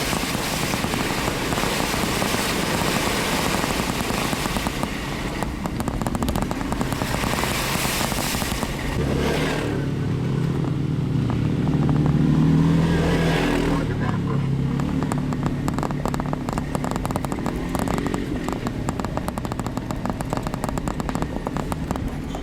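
Off-road vehicle engine running at low speed on a rocky trail, with tyres crackling over rock and brush. About ten seconds in, a deeper engine note swells for a few seconds, then fades.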